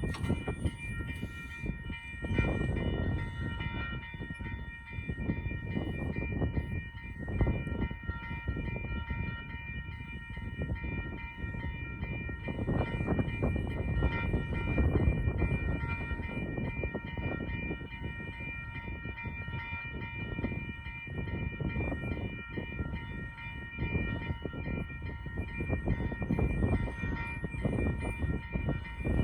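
Metra commuter train passing at a grade crossing: a heavy, uneven rumble of the cars on the rails, with the crossing's warning bell ringing steadily throughout.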